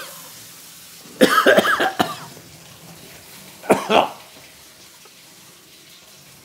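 A man coughing into a napkin, set off by the burn of ghost chili–infused honey: a longer coughing fit about a second in and a single short cough near four seconds in.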